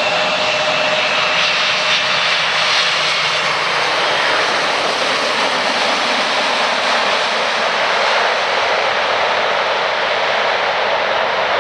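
Twin-engine Boeing 767 jet airliner landing. The jet engines' whine, with a steady high tone, fades out in the first few seconds as it flares and touches down. A broad, steady roar then carries on through the rollout.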